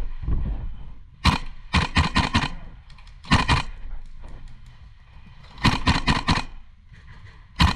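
DDM4 V7 MWS gas blowback airsoft rifle firing in several short strings of rapid shots, each shot a sharp crack as the bolt cycles.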